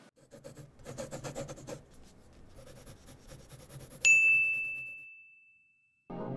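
Faint scratchy ticking, then about four seconds in a single bright bell-like ding that rings on one high note and fades away over about two seconds. Music starts right at the very end.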